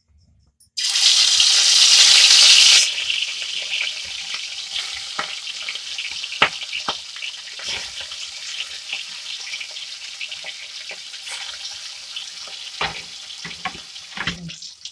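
Rohu fish steaks hitting hot oil: a loud burst of sizzling about a second in, easing after about two seconds into a steady frying sizzle with scattered pops and crackles. A few knocks near the end.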